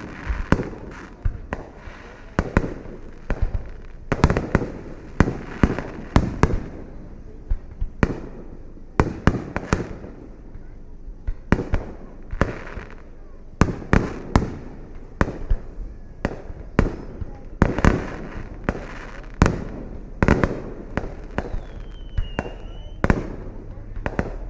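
Aerial fireworks display: a fast, irregular run of booms and sharp cracks, at times several a second, each trailing off in a low rumbling echo.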